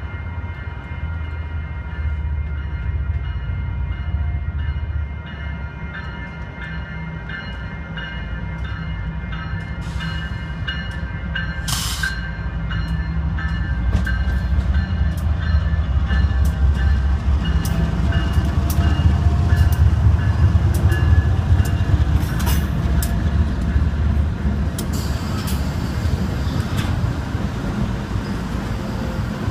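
BNSF freight train led by a GE ES44DC diesel locomotive approaching and passing close by, its engine rumble growing louder from about halfway and peaking as the locomotive goes by. A grade-crossing bell rings in quick, even strokes through most of it.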